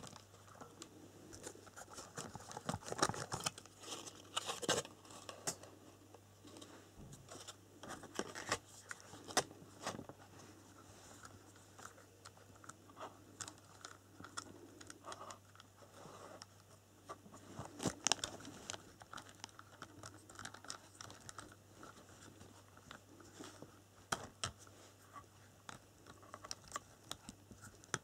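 Hands handling a small plastic RC truck, the Maverick Atom 1/18: irregular clicks, taps and rustles of plastic as the body shell is taken off and the chassis wiring is handled.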